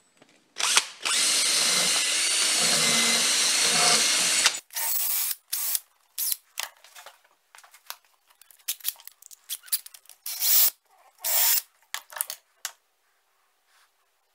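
Power drill spinning a wire wheel against the metal body of an old Stanley spokeshave to clean it. One steady run of about four seconds, then a string of short bursts as the drill is started and stopped.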